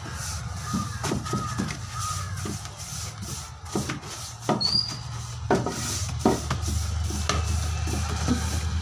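Wide paintbrush scrubbing wood primer onto bare new wood, with irregular short knocks and scrapes as the brush works into the corners of the panel. Beneath it is a steady low hum that grows louder near the end.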